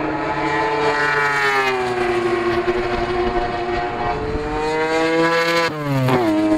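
Mazda 20B triple-rotor rotary engine running hard in a race car. Its revs fall, hold low, climb again, then drop sharply about six seconds in and settle.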